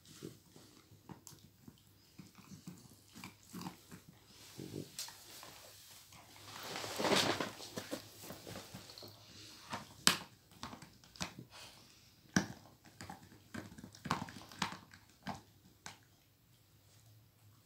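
Pitbull and miniature pinscher chewing and mouthing a red rubber toy: scattered soft bites and sharp clicks, with a louder rustling noise for a second or so about seven seconds in.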